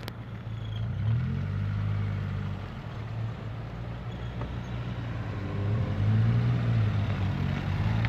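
Car engine running at low speed close by and accelerating, its pitch rising about a second in and again around six seconds in. A short click at the very start.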